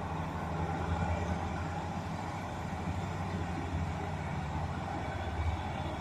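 Steady low rumble of vehicle engines, with a constant hum and no sharp events.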